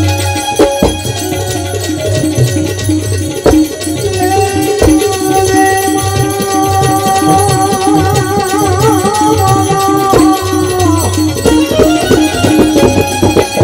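Devotional bhajan music with a drum and jingling percussion. A singer holds one long note from about four seconds in until about eleven seconds, wavering near its end.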